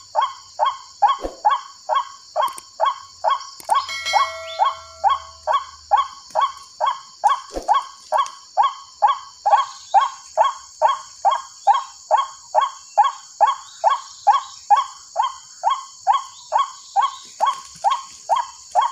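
White-breasted waterhen call played over a horn loudspeaker as a trapping lure: a short bark-like note repeated evenly, about two and a half times a second, over a steady high hiss.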